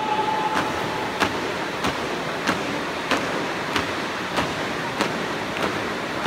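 A marching squad's feet striking the wooden hall floor in unison, one sharp stamp about every 0.6 seconds, over the steady noise of a large hall. A drawn-out shouted drill command dies away about a second in.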